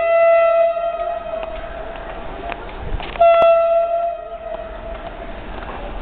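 WAP-4 electric locomotive's horn sounding two blasts. A long steady blast ends about a second and a half in, and a second, shorter blast starts about three seconds in and fades out a little over a second later.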